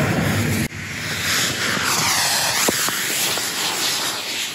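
Six F-class rocket motors strapped to a sledgehammer, firing with a loud rushing hiss. The sound drops out sharply for a moment about a second in, then carries on with a swirling, phasing tone. Two sharp knocks come about halfway through.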